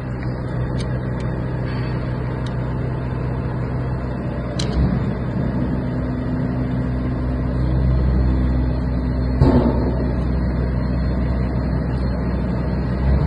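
Steady low mechanical drone, with a few light clicks early on and a single knock about nine and a half seconds in.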